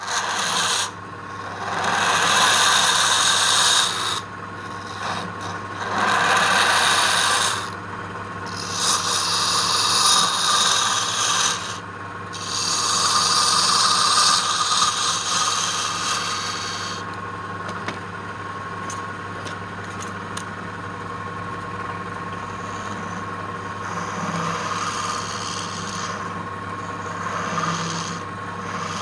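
Wood being worked with a hand tool against a running woodworking machine: several long spells of loud scraping, each a few seconds long, over the machine's steady motor hum, then quieter, lighter scraping.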